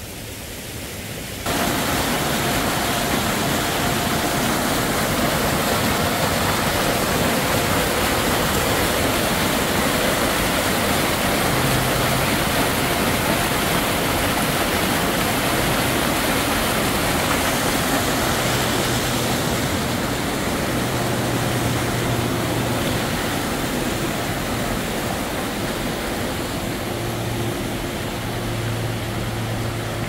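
Alpine mountain stream rushing over boulders, a steady hiss of water that steps up in level about a second and a half in.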